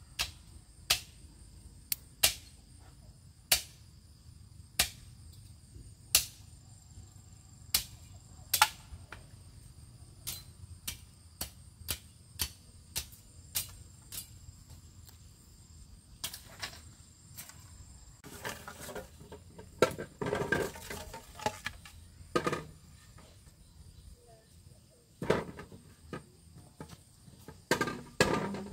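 Sharp clicks or knocks, at first about one a second, then coming faster, followed by bouts of rustling and scraping from handwork. A steady high insect drone runs underneath.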